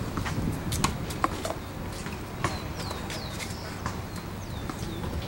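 Tennis ball being rallied on a hard court: a string of sharp knocks from racket strikes and ball bounces over a low steady rumble. A few short falling chirps from a bird come in around the middle.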